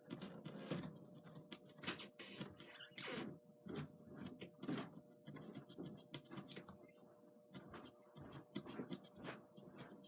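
A blade sawing through foam core board in short, irregular scratchy strokes.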